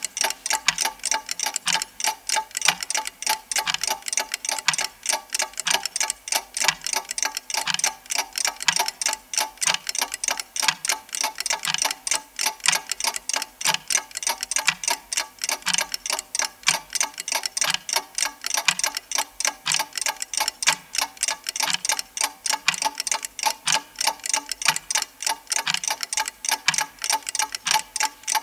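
Clock ticking steadily and quickly: sharp, bright ticks several times a second over a lower knock that comes about three times every two seconds.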